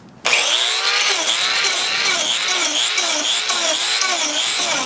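Angle grinder fitted with a TurboPlane carving blade, starting suddenly and shaving bark off a bur oak slab. Its loud whine dips in pitch and recovers about twice a second as the blade bites into the wood.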